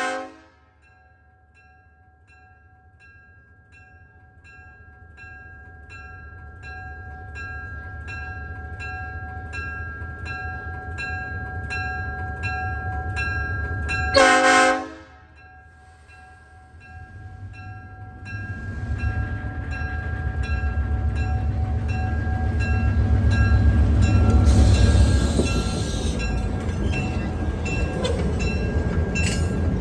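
Southern Pacific E9 diesel locomotive approaching: a short horn blast about halfway through, then the rumble of its twin diesel engines and wheels growing louder as the train comes close.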